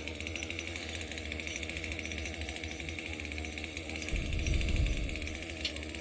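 Chainsaw engine running at a steady speed, with a louder low rumble swelling for about a second around four seconds in.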